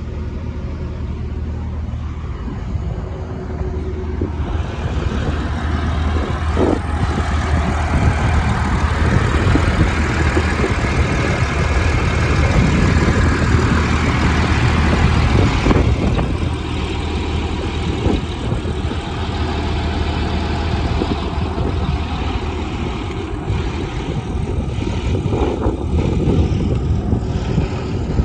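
Liebherr R946 long-reach excavator's diesel engine running with a steady low hum. It grows louder about four seconds in and eases back after about sixteen seconds, with a few short knocks.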